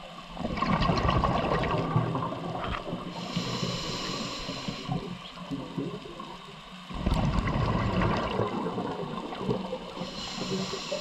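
A scuba diver breathing through a regulator underwater. There are two long exhalations of gurgling bubbles, each a couple of seconds long, and each is followed by the thinner hiss of an inhalation.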